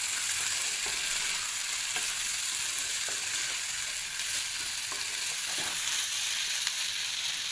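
Samosa filling of chicken, potatoes and spices frying in hot oil in a pan: a steady sizzle, with occasional scrapes of a spoon stirring it.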